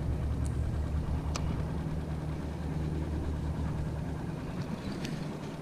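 A boat motor running steadily at low revs, a low hum that weakens near the end. A few faint sharp clicks sound over it.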